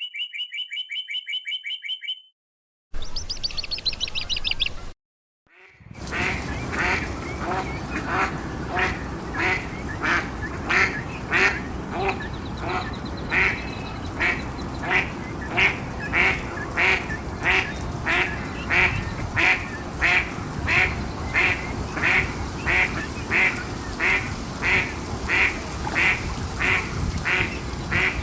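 A short chiming jingle and an electronic effect, then a mallard quacking over and over at an even pace, about one and a half quacks a second, over steady outdoor background noise.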